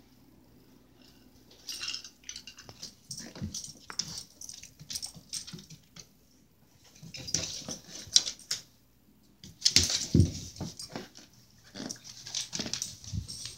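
A dog playing with a fabric toy in its mouth: its noises and scuffling come in irregular bursts, beginning about two seconds in, with a couple of low thumps in the second half.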